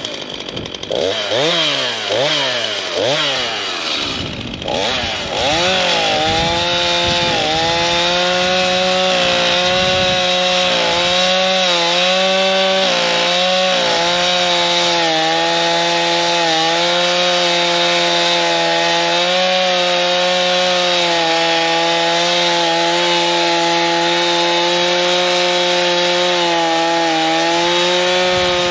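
STIHL chainsaw revving up and down in quick pulses for the first five seconds or so, then held at high, steady throttle as it cuts through willow wood, the pitch dipping slightly now and then under load.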